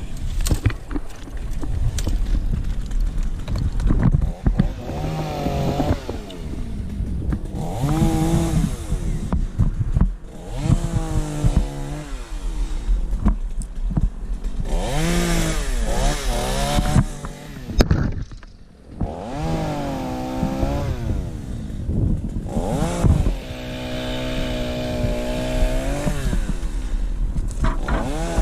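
Chainsaw cutting elm wood, its engine revving up and falling back again and again, with a brief drop near idle about eighteen seconds in.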